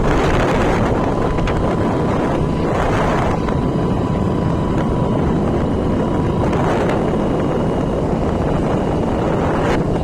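Wind buffeting the microphone over the steady noise of a moving road vehicle. A faint steady whine runs through the middle of it for a few seconds.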